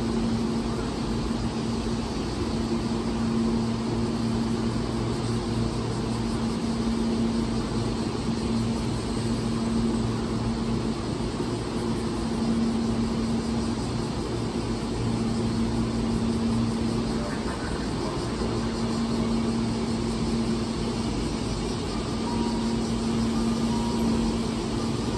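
Hankyu 8300 series electric train standing at a station platform, its onboard equipment giving a steady drone with a low, even hum.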